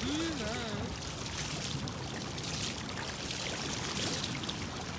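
Shallow water rushing and splashing through a narrow channel cut in beach sand, a steady rush around a small standing wave.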